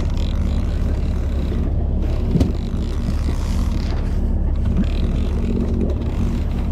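Charter boat's engine droning steadily while under way trolling, with a single sharp knock about two and a half seconds in.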